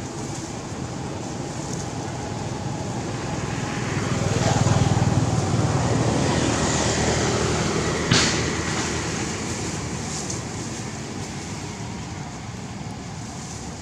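A motor vehicle passing by: its low rumble swells about four seconds in, then fades away. A sharp knock comes about eight seconds in.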